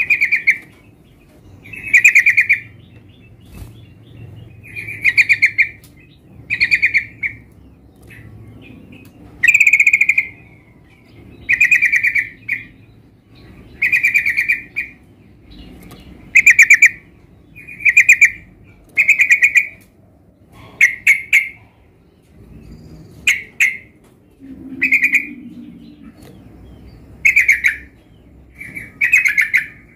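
Yellow-vented bulbul (trucukan) singing: short, bubbly, chattering phrases, about fifteen of them, one every couple of seconds.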